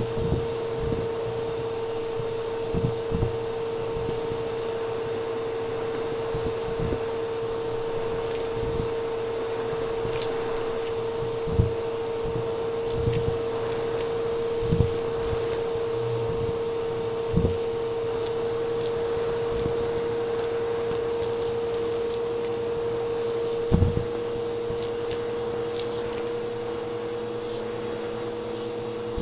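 Vacuum cleaner running with a steady whine, its hose and dusting-brush attachment sucking fluffy fake snow and glitter off carpet. A handful of short thumps break in at irregular moments, the loudest about 24 seconds in.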